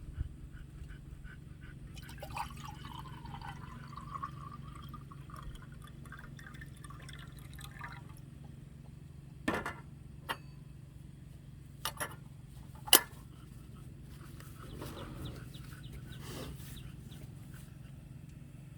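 Liquid pouring into a container, its pitch rising slowly as it fills, followed by a few sharp knocks, the loudest near the end.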